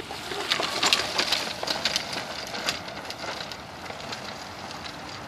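Kangaroo battery-powered golf caddie's electric motor drive running as the caddie rolls away by itself over grass and dry leaves, with a scatter of clicks. It is loudest about a second in and grows fainter as the caddie moves away.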